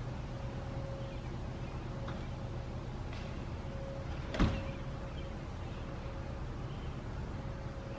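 Outdoor background noise with a steady low hum and a faint on-and-off higher tone, the siren speakers themselves silent. A single short, sharp thump about four and a half seconds in.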